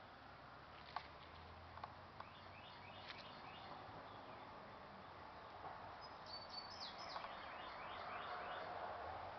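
Small birds chirping in quick runs of short, falling notes, repeated a few times, over steady outdoor background noise. A few light clicks sound around one and two seconds in.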